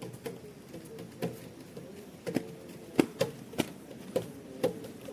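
Irregular light knocks and clicks, about a dozen of them at uneven spacing, the loudest about three seconds in, over a faint background hum.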